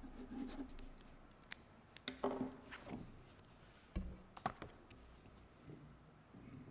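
Faint, scattered taps and knocks on a wooden lectern as a pen is set down and papers and a folder are picked up, with a low thunk at about four seconds and a couple of sharp taps just after it.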